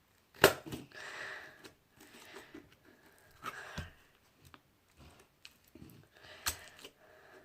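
Putty being handled and squished, making crackling, squelchy sounds, with sharp clicks: the loudest about half a second in, others near three and a half and six and a half seconds.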